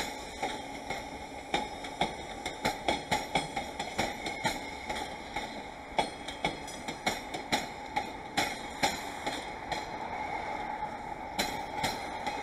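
JR West 201 series electric train pulling away, its wheels clacking over rail joints and points in a quick, uneven run of clicks. The clicks thin out about two-thirds of the way in, leaving a steady rumble.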